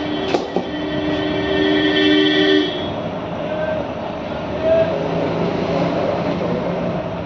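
A horn sounds in one steady blast of about two and a half seconds, two notes together, over a constant background din; a couple of sharp metallic knocks come in the first second.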